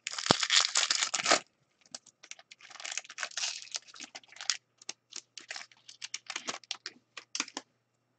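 A foil pack of hockey trading cards torn open and its wrapper crinkled, loudest for the first second and a half, with more crinkling from about three to four and a half seconds in. Then a run of quick, light clicks as the cards are flicked through one by one.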